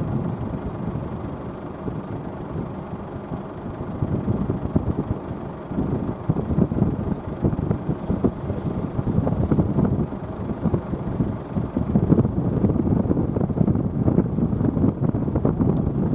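Case IH Puma 185 CVX tractor's six-cylinder diesel engine running steadily in the field, with wind rumbling on the microphone.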